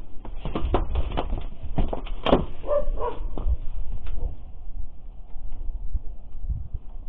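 A dog barking a few short barks about three seconds in, over a low rumble of wind on the microphone and a run of short knocks in the first couple of seconds.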